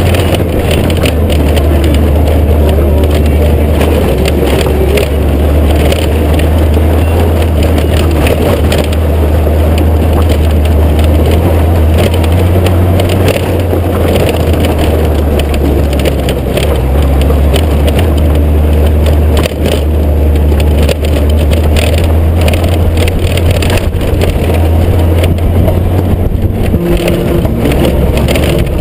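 Honda GoldWing GL1500's flat-six engine running steadily as the motorcycle rolls along a gravel track, with stones crunching and rattling under the tyres.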